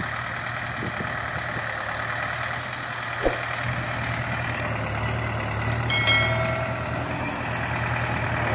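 Mahindra 575 DI tractor's four-cylinder diesel engine running steadily at low speed under the load of a heavily loaded sugarcane trolley. A sharp click about three seconds in, and a short high-pitched beep about six seconds in.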